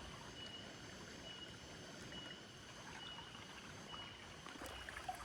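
Faint steady rush of a small river flowing, with a faint high short chirp repeating about once a second.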